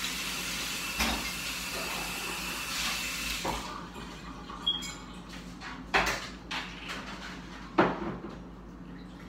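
A person biting into and chewing a boiled potato close to the microphone, with scattered sharp wet mouth clicks and smacks. A steady hiss during the first few seconds cuts off abruptly.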